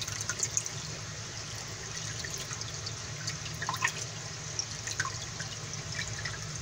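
Water trickling and dripping as it is tipped slowly from a bucket into a pond: small scattered drips over a steady low hum.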